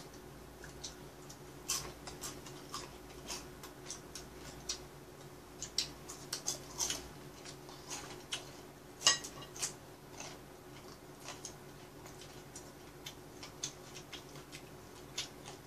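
Eating sounds: scattered, irregular light clicks of chopsticks against plates and chewing of chicken gizzards, over a faint steady hum.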